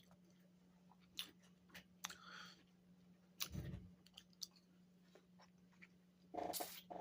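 Faint mouth sounds of someone eating a frozen strawberry fruit bar: scattered soft clicks and smacks of biting and chewing, with a louder short sound near the end. A steady low hum runs underneath.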